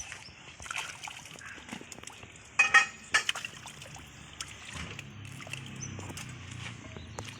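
Water splashing and sloshing in irregular spurts during machine well drilling. There is a brief loud sharp sound about two and a half seconds in, and a low steady hum comes in about halfway through.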